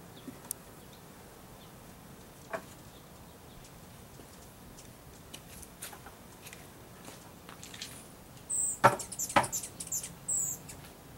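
A few short, high, thin bird chirps near the end, mixed with a couple of sharp clicks, over faint scattered ticks.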